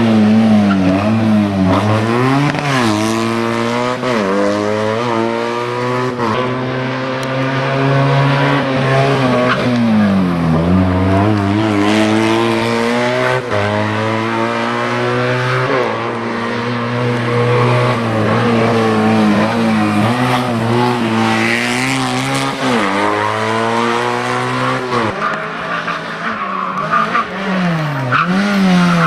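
Race car engine revving hard, its pitch climbing through each gear and dropping sharply at every gear change or lift, over and over. This is the pattern of a car being driven flat out up a twisting hillclimb course.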